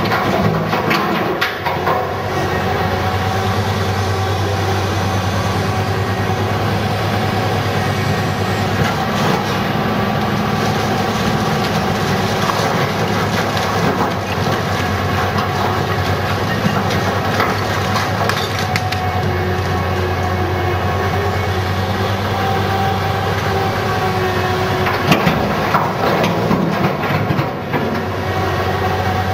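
Heavy diesel engine of a Komatsu PC750SE-7 hydraulic excavator running steadily under load as it swings and digs. Blasted basalt clatters and knocks against steel, once near the start as a load drops into the dump truck's bed and again toward the end as the bucket digs.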